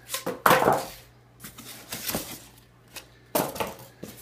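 Packing material rustling and crinkling as a foam sheet is pulled off a boxed tabletop by hand, in irregular bursts, the loudest about half a second in.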